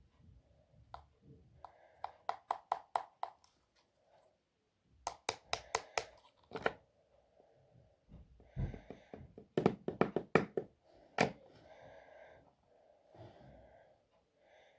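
Homemade slime being squeezed and worked by hand, giving three quick runs of sharp clicking pops, each run of about six to eight clicks.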